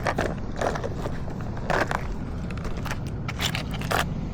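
Fishing tackle being handled while a lure is put on: irregular small clicks and rattles. A steady low rumble runs underneath.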